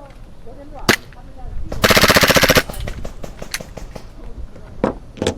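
Airsoft gun fire: a single shot about a second in, then a short full-auto burst of rapid, evenly spaced shots lasting under a second, followed by scattered single shots and two more near the end.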